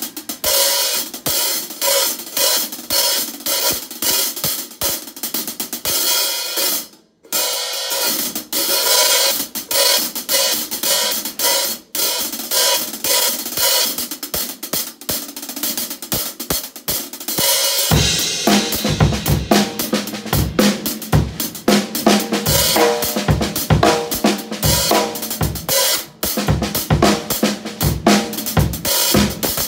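Drum-kit groove on brilliant-finish Sabian HHX Evolution hi-hats, played with sticks alongside the snare, bright and flashy in tone. There is a short break about seven seconds in, and the bass drum joins in about eighteen seconds in.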